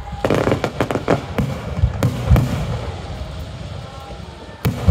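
Aerial firework shells bursting in quick succession, with many bangs in the first two seconds or so. A quieter stretch follows, then a single loud bang near the end.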